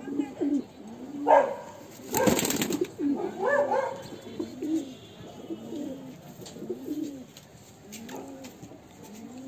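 Domestic pigeons cooing, a low arching coo repeating roughly once a second, with a short loud burst of wing flapping about two seconds in.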